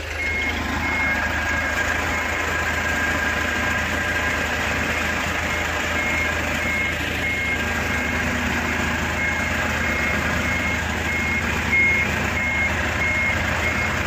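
Reversing alarm on a boom truck beeping as the truck backs up, in runs of quick, evenly spaced high beeps. The steady low hum of engines running lies underneath.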